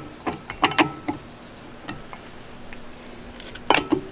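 Metal clinks of a four-way cross lug wrench being fitted onto a trailer wheel's lug nuts: a few sharp clinks in the first second and another cluster near the end.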